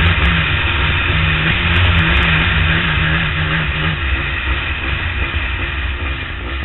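Motorcycle engine running at a steady road speed under heavy rushing air noise. About four seconds in, its steady note drops away and the level eases off a little.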